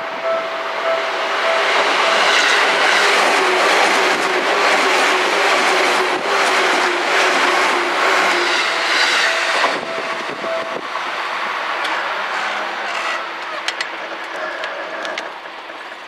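Seibu 2000-series electric train passing close by at speed: a loud rush of wheels on rail with clattering clicks over the joints, fading after about ten seconds as it draws away. A level-crossing bell rings as a steady electronic tone under the train noise.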